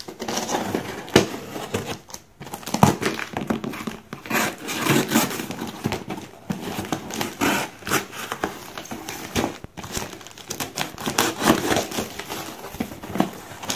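Clear plastic shipping bag crinkling and a cardboard box rustling as the package is slit with a knife and torn open, in irregular bursts with a few sharp clicks.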